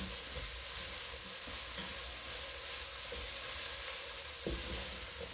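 Chopped onions, carrots and celery sautéing in olive oil in a Dutch oven, sizzling steadily, with a faint knock about four and a half seconds in as the vegetables are stirred with a wooden spatula.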